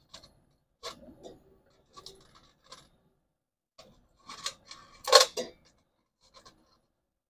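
Metal tongs clicking and scraping against ceramic processor chips in a stainless steel pot: a few scattered light clinks and rubs, the loudest a little past halfway.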